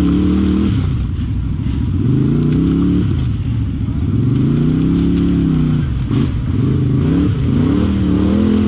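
ATV engine revving under throttle as it creeps along a rough trail, its pitch rising and falling in long swells, then in quicker blips near the end.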